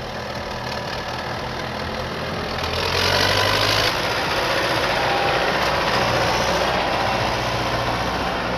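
Heavy truck engine running, with a steady low drone under rough mechanical noise that grows louder about three seconds in and stays up.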